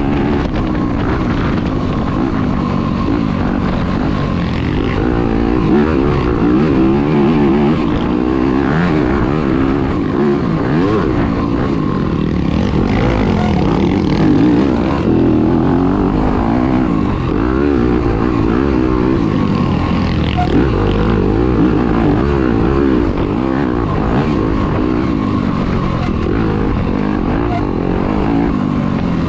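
Dirt bike engine heard on board during a race, revving up and down again and again as the rider works the throttle and shifts, with no let-up.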